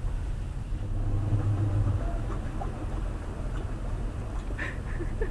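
Washing machine spinning on its spin-dry cycle: a steady low rumble and hum that swells briefly about a second in.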